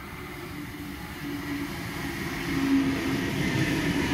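Sydney Trains Waratah double-deck electric train drawing in along the platform, a steady hum with a higher tone over wheel-on-rail rumble, growing louder as it nears.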